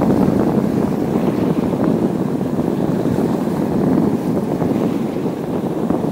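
Wind buffeting the microphone in a steady low rumble, mixed with sea surf washing on the shore.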